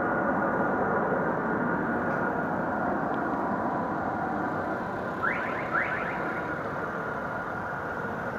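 Unexplained droning sound in the sky: a steady rumbling noise with faint held tones, slowly fading, with two quick rising chirps a little past halfway.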